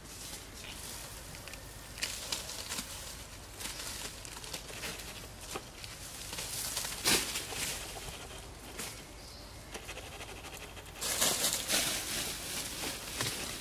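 Dry leaf litter rustling and crunching in irregular crackles, with louder bursts about halfway through and again near the end.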